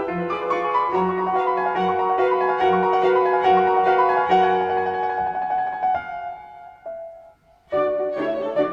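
Classical piano music. The passage thins out and fades about six seconds in, there is a brief silence, and a new phrase begins near the end.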